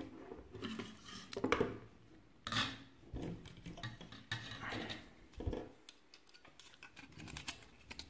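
Light clicks, knocks and rattles of a graphics card's plastic fan shroud being handled, set down and picked up again on a tabletop.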